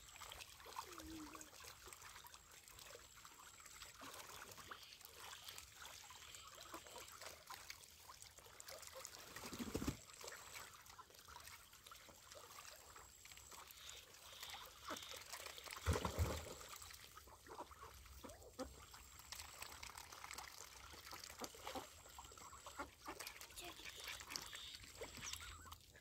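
Faint trickling of flowing water in a shallow channel, with two brief dull thumps about ten and sixteen seconds in.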